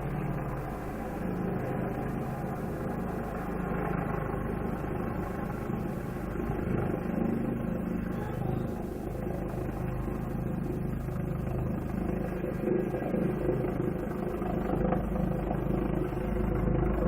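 US Army helicopter flying, its rotor and turbine noise a steady drone that grows somewhat louder near the end.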